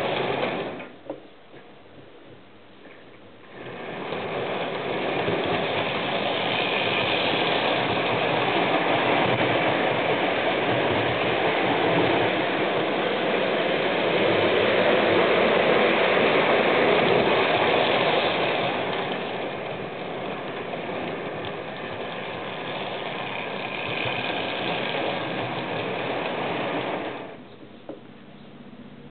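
Model train running on Hornby Dublo three-rail metal track: the GMR Models LNER A4 locomotive's motor whirrs and the wheels of the engine and teak coaches rattle over the rail joints. The sound drops low for a couple of seconds just after the start and again near the end.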